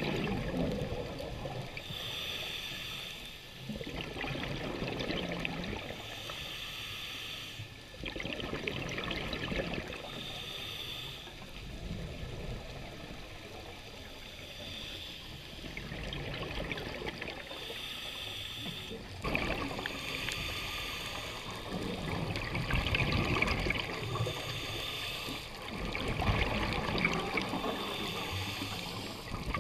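Scuba diver breathing through a regulator underwater: a short hiss on each inhale, then a gurgling rush of exhaled bubbles, repeating every few seconds.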